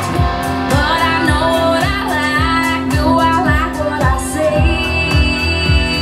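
A song with a sung vocal over a steady beat, about two beats a second, played as a test track through a JBL IRX108BR PA speaker with the auto EQ curve switched in, which cuts some of the mid-range.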